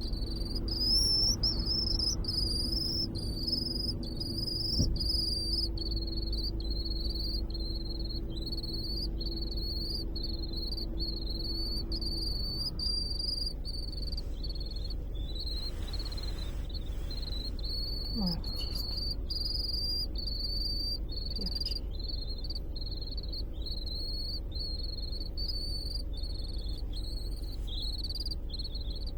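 A swift calling inside a moving car: a steady, rapid series of short high-pitched chirps, heard over the low rumble of the car cabin.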